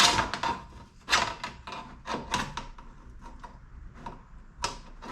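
Hard knocks and scraping of the intake's top plate being slid and worked into place over the filter housing, about five distinct clunks with rubbing between them.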